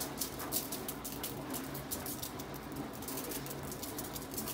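Spice shaker shaken repeatedly over the fish, its dry granules giving a quick run of scratchy rattles.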